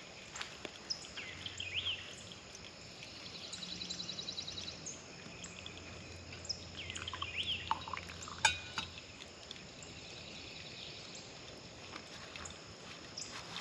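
Songbirds chirping and calling, with a fast high trill about four seconds in. A faint low hum runs under the first part, and there is one sharp click a little past the middle.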